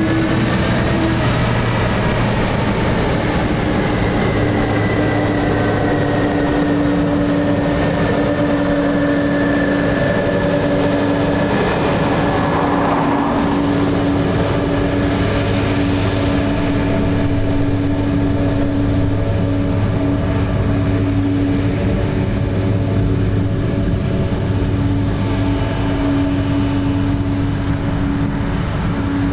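Airbus A330's twin jet engines running at low taxi power as the airliner taxis past and turns away: a steady whine over a low hum, with some higher tones sliding slowly lower over the first ten seconds or so.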